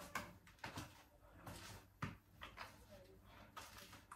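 Very quiet room, with a few faint soft clicks and rustles from a sunscreen bottle being handled; one sharper click comes about halfway through.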